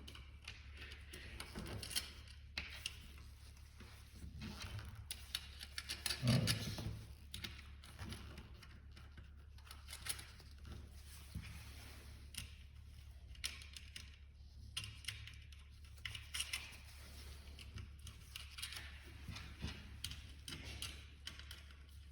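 Irregular small metallic clicks and taps of stainless steel bolts and nuts being handled and set into the ring cover of a stainless steel lyophilization tray, with one louder dull thud about six seconds in, over a steady low hum.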